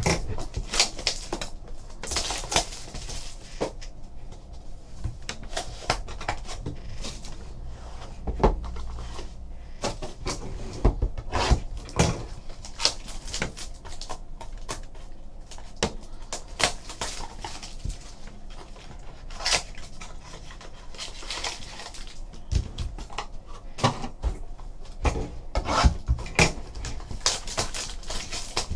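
Clear cellophane wrapper being torn and crinkled off a small cardboard trading-card box, with irregular crackles, rustles and light taps as the box is handled and opened.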